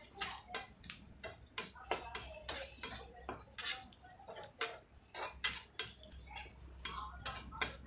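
Steel spatula scraping and tapping against a kadai while stirring frying onions and spice powders, an irregular run of sharp strokes, a few each second.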